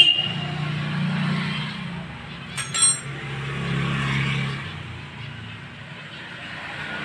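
Small metal parts clinking together, a quick double clink with a bright ringing tone about three seconds in, over a low hum of motor traffic that swells twice.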